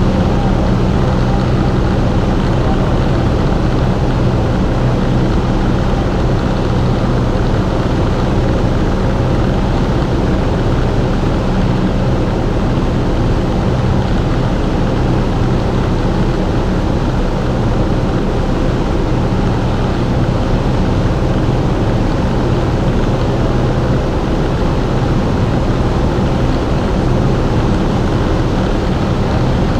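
Cessna 172S's four-cylinder Lycoming engine and propeller droning steadily in cruise flight, heard inside the cabin as a constant low hum over rushing airflow.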